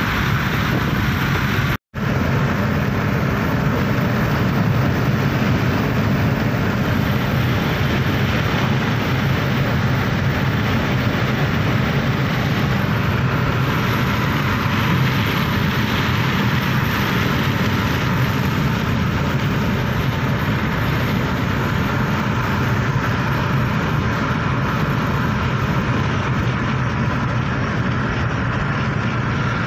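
Steady road, engine and wind noise inside a car cabin at highway speed. It cuts out for an instant about two seconds in.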